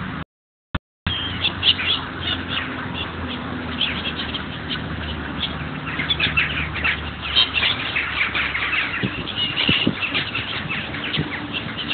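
A flock of ducks and gulls calling, a dense run of short quacks and squawks, as they crowd in at the water's edge to be fed. A steady low hum lies underneath. The sound cuts out completely for about a second near the start.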